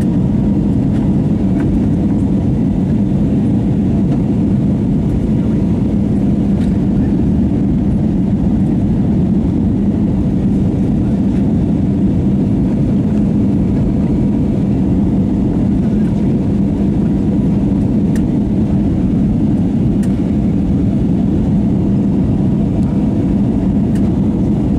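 Steady cabin noise of an Airbus A321neo in flight, heard inside the cabin: rushing air and its Pratt & Whitney geared turbofan engines, with a low hum held on one pitch.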